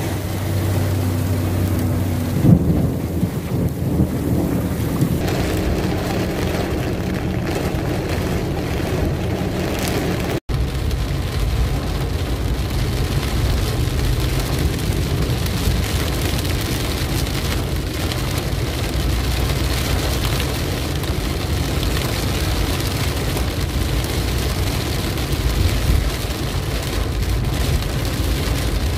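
Heavy rain pouring steadily over a low hum, with a brief loud thump about two and a half seconds in. About ten seconds in the sound drops out for an instant and switches to a car driving through the downpour, rain hitting the windshield over a low rumble of tyres and engine.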